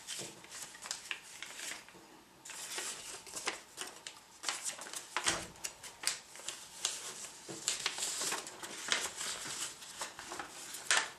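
A sheet of letter-size paper being folded and tucked by hand: irregular rustling and crinkling with quick crackles as the folds are worked.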